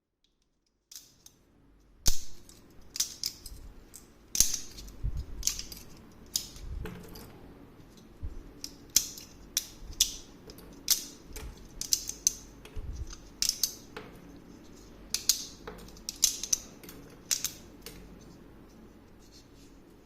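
Irregular sharp clicks and snaps of hard plastic, roughly one a second, some much louder than others, over a faint low hum, starting about a second in: a 3D-printed plastic turbine runner being handled.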